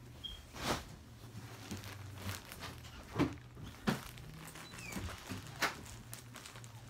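Grey plastic poly mailer bag rustling and crinkling as it is picked up and handled, in several short crinkles with a few louder ones, over a faint low steady hum.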